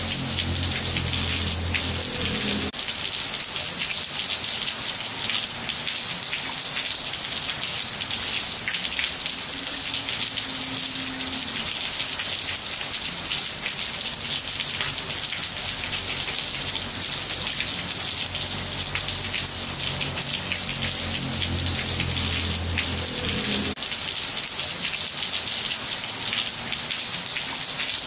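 Steady rain falling on a wet ceramic-tiled floor: an even hiss of countless drops striking the tiles and the standing water, with individual drop ticks all through it.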